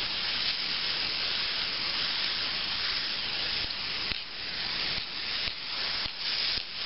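Aerosol spray paint can spraying: a long steady hiss, then several shorter bursts with brief gaps between them over the last few seconds.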